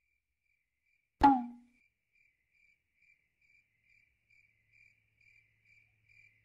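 Cricket chirping sound effect marking an awkward silence: faint, evenly spaced chirps about twice a second. It follows a single sudden hit with a short ringing tail about a second in, the loudest sound here.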